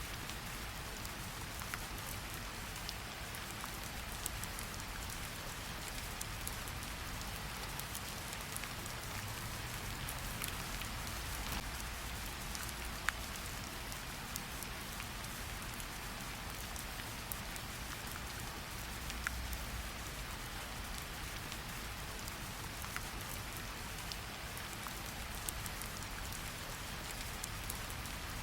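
Steady rain hiss with scattered sharp crackles and pops from a wood fire in a fireplace, over a low steady rumble.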